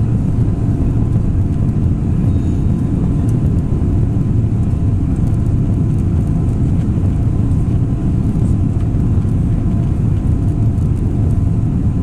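Steady cabin noise at a window seat over the wing of an Airbus A319 in flight: a deep, even rumble of the engines and rushing air, with a few faint steady hums above it.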